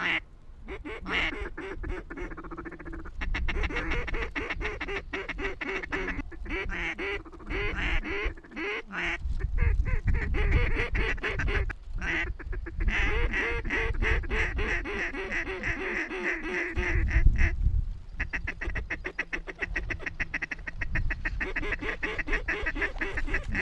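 Ducks quacking and chattering in fast, continuous runs of calls. A low rumble swells twice, about a third of the way in and again about three quarters through.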